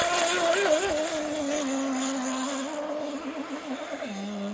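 Two-stroke OS 40 VRM glow engine with a tuned pipe, driving an RC rigger hydroplane at speed: a high, wavering wail that falls in pitch and grows a little fainter, dropping lower about four seconds in.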